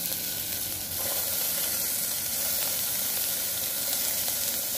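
Onions frying in hot oil in an aluminium pressure cooker, a steady sizzle that grows louder about a second in as chopped tomatoes are tipped into the pan.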